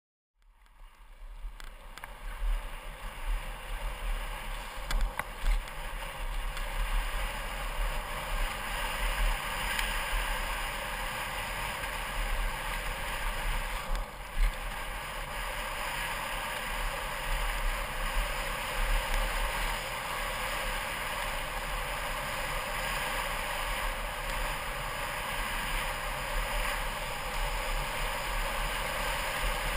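Wind rushing over a GoPro's microphone with a steady low rumble as a mountain bike rolls fast over a dirt trail, with a few sharp knocks from the bike over bumps.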